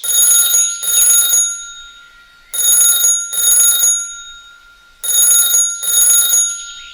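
Telephone ringing in a double-ring pattern: two short rings, then a pause, three times over.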